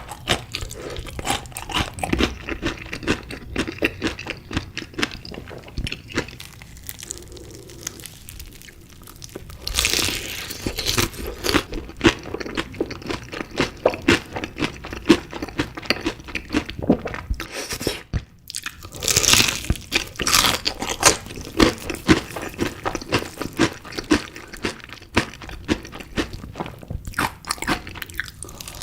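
Close-miked eating of chicken pieces in spicy sauce: steady chewing with many sharp crunchy bites, louder clusters of bites around the middle and a short pause about two-thirds through.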